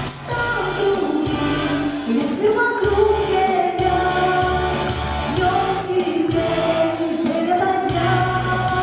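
A young girl singing a pop song live over a backing track with a steady beat.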